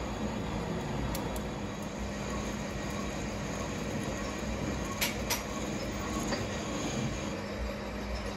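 Metal lathe running, turning the steel shank of a cast crane hook: a steady machine rumble with a constant hum, and two sharp clicks about five seconds in.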